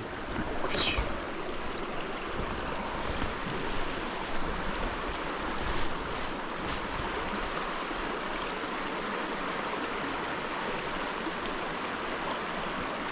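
Small mountain creek water running steadily over rocks, a constant rushing. There is a short high squeak about a second in.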